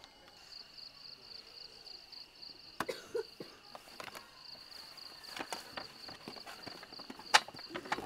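Camping gear being packed into a plastic storage crate: a few scattered knocks and clacks of plastic food containers being handled, with a sharp loud click near the end, over a steady high insect trill.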